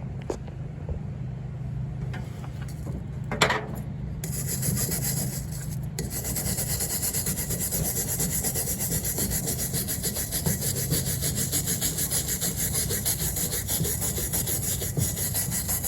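Rapid, even back-and-forth scraping on a coconut-shell birdhouse as it is cleaned off, starting about four seconds in after a few light knocks.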